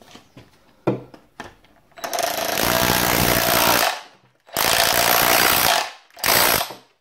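DeWalt SDS rotary hammer driving a flat chisel bit into plaster and masonry, deepening a hole for an electrical socket back box. It runs in three bursts, the first two of about two and one and a half seconds and the last brief, after a few knocks of the bit being positioned.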